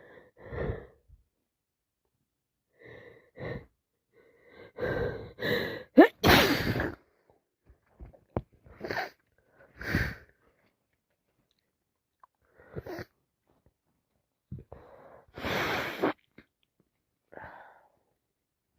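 A woman with a heavy head cold in a bout of sneezing: several sharp sneezes, the loudest about six seconds in after a rising, gasping in-breath, with shorter gasps and breaths between them.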